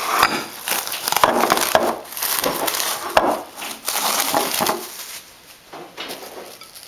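Food containers and packaging being pulled out of a fridge: a busy clatter of plastic knocks, clicks and rustling that thins out near the end.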